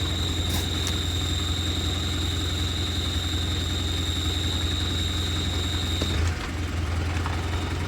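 Mitsubishi Pajero IV 3.2 diesel idling with a steady high-pitched whistle over the engine hum. The whistle is the strange noise the owner is trying to trace. It cuts off about six seconds in while the engine keeps running.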